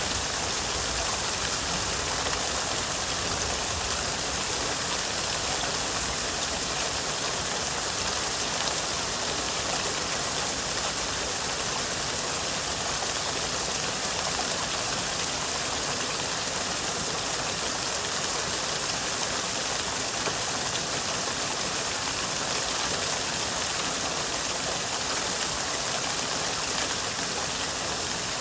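Steady rain falling: an even, unbroken hiss with no single drops, thunder or calls standing out.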